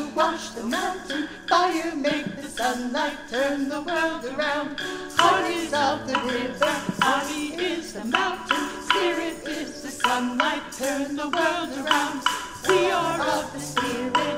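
Women's voices singing a song together, accompanied by piano, with wooden rhythm sticks clicking along through it.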